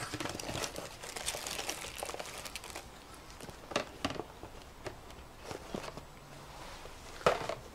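Cardboard box and plastic packaging crinkling and rustling as a spinning reel is unboxed, dense for the first three seconds or so, then a few sharp clicks and short rustles from handling.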